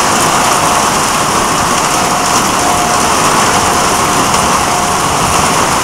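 Heavy rain falling steadily: a dense, even hiss, with a faint thin tone that comes and goes.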